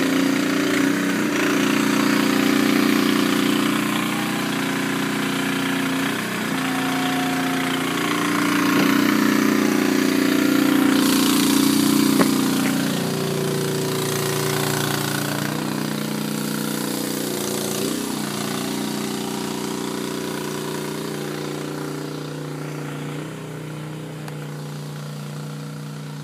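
Engine of trenchless sewer pipe-bursting equipment running steadily. Its pitch drops a little about halfway through, while a hiss joins for a few seconds.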